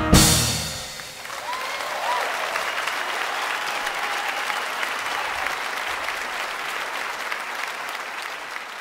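A big band's last chord cuts off just at the start and rings briefly in the hall. Then a theatre audience applauds steadily, with a whistle from the crowd about a second and a half in.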